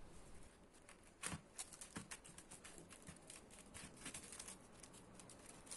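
Faint rustling and soft clicks of a paper towel and a gloved hand pressing on salted eggplant slices on a parchment-lined baking tray, blotting out the water the salt has drawn out; the clearest tick comes about a second in.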